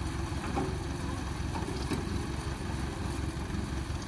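An engine runs steadily at a constant speed with an even low pulsing, without revving.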